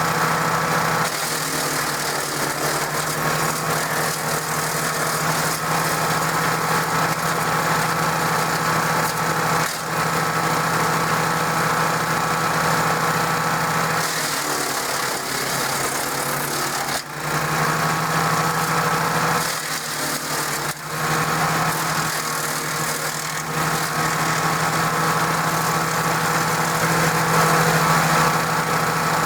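DR 16.5 self-feeding wood chipper running steadily on its Briggs & Stratton engine. Its sound dips and shifts briefly a few times midway.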